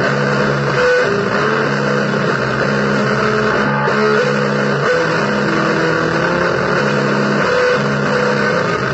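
Electric guitar playing slow, held blues notes over a dense, steady wash of noise.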